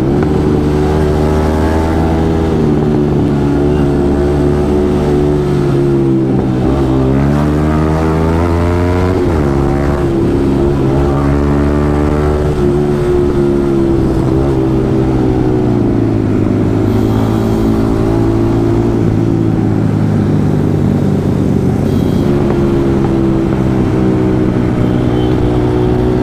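Yamaha MT-15's single-cylinder engine running under way. Its engine speed holds steady, then dips and climbs back a few times, about six and nine seconds in and again around the middle.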